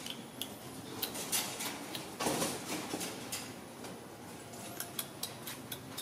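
Scattered light clicks and taps as a baby monkey clambers in and out of a front-loading washing machine's steel drum and over a pile of clothes, with a brief rustle of fabric about two seconds in.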